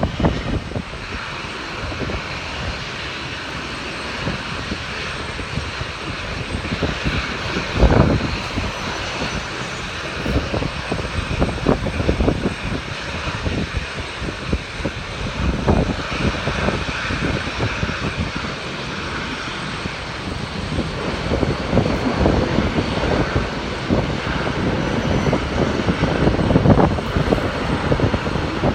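Airliner engines running, a steady rushing noise that grows louder over the last third, with gusts of wind buffeting the microphone.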